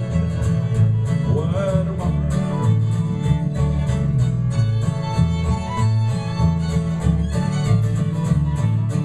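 Live acoustic bluegrass band playing an instrumental passage: fiddle melody over strummed acoustic guitars and a steady, stepping bass line.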